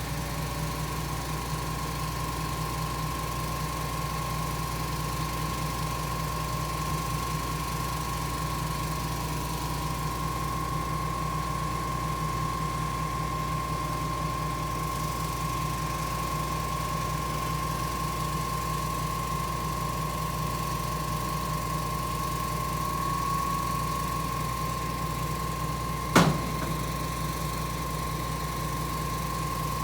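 Putzmeister 47-metre truck-mounted concrete boom pump running steadily: the diesel engine's low rumble with a constant high whine over it. Near the end comes a single sharp knock.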